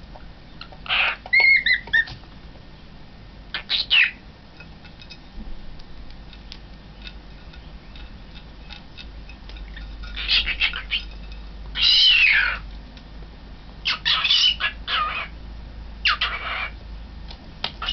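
Young cockatiel calling in short bursts of harsh squawks and chirps, some with quick wavering whistled notes, about six bursts separated by pauses of a few seconds.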